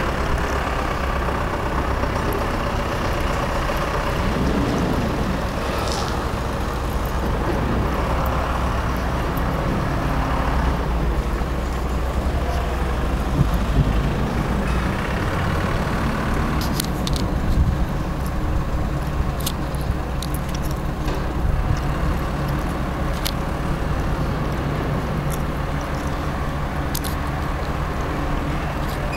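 Steady low vehicle engine hum with traffic noise, and a few light clicks in the second half.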